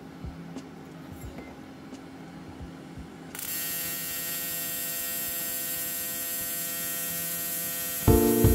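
An AC TIG welder's arc on aluminum strikes about three seconds in and runs as a steady electric hum with a hiss. Before it, only faint ticks.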